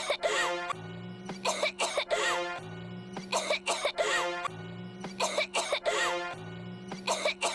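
The same short cough clip looped over and over, a burst of harsh coughs repeating about every two seconds, four times or so, over a steady music bed.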